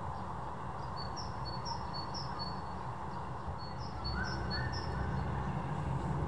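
Distant Boeing 737-500 jet airliner on approach: a steady low engine rumble that grows a little louder about four seconds in. A small bird chirps over it in two quick runs of three high notes.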